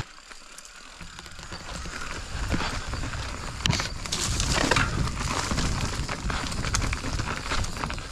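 Enduro mountain bike ridden down a dirt trail: tyres crunching over dirt and rocks, with constant clicks and rattles from the chain and bike. It starts quiet and builds after about a second.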